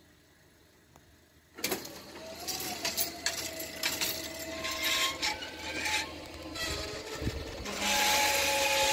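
Railway level-crossing barrier arms swinging down, their mechanism squealing and scraping with clicks. It starts suddenly about one and a half seconds in and is loudest near the end.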